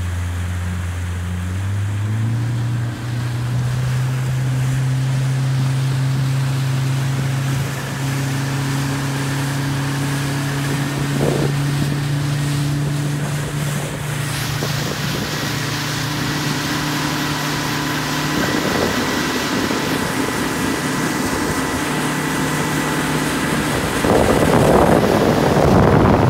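Motorboat engine running steadily, its pitch stepping up about two seconds in as the boat speeds up. Water rushing along the hull and wind on the microphone grow louder, with a loud gust of wind noise near the end.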